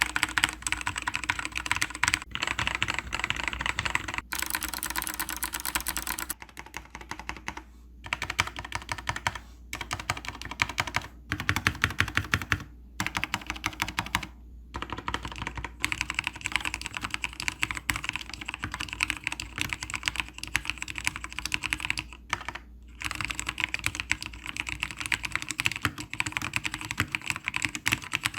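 Fast typing on a mechanical keyboard with mixed Kailh and Cherry switches, PBT OEM-profile keycaps and freshly lubricated stabilizers. The clicking comes in runs, broken by several short pauses.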